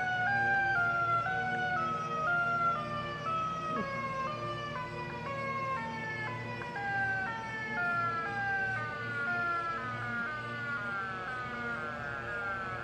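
Homemade tornado siren sounding a two-tone hi-lo warble. The pitch alternates about twice a second while both tones slowly sink, and it cuts off near the end.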